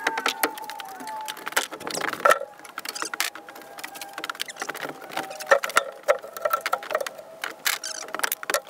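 Irregular clicks, knocks and scrapes of work on the wooden floor of a solar wood kiln: a broom sweeping, wood being handled and footsteps on the plywood.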